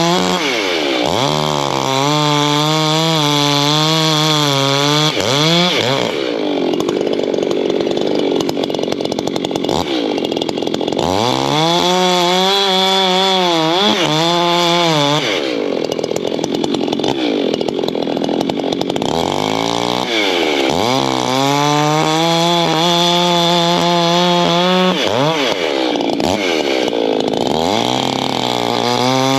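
Echo gas chainsaw bucking oak logs into rounds: it revs up, settles into a steady, lower pitch under load through each cut, and revs back up as it comes through; about three cuts, with breaks between them.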